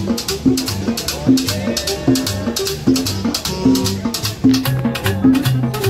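Live Latin dance music from a street band: timbales and other percussion striking a fast, even rhythm over a pulsing bass line.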